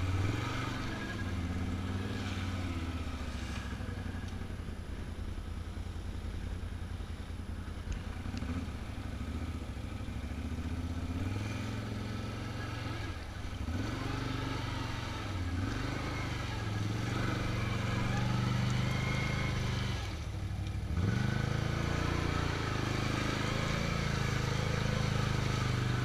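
Can-Am Outlander ATV engine running under way, its pitch rising and falling with the throttle. It eases off briefly about twenty seconds in, then picks up again.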